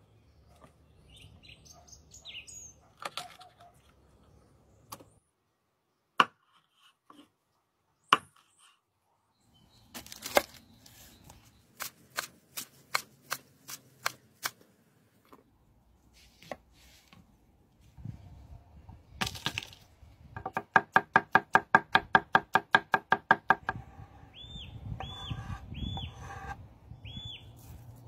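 Large kitchen knife striking a wooden cutting board while cutting cod into pieces and chopping: a few single knocks, then a run of strikes, then fast even chopping at about six strokes a second. Birds chirp near the end.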